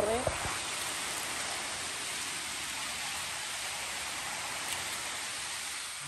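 Steady rush of mountain river water flowing, an even noise with no breaks or strokes.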